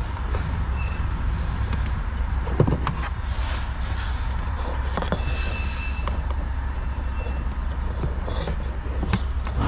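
Hands working a sensor wire loose from its plastic mount on a pickup's HVAC case, a few light clicks and knocks of plastic over a steady low hum.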